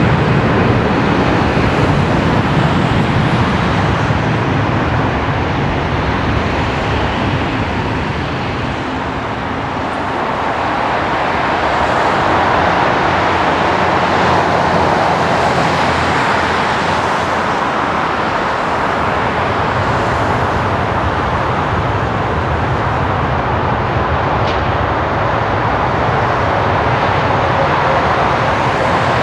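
Steady airport noise: jet engines and ground vehicles running, dipping a little and then swelling again partway through.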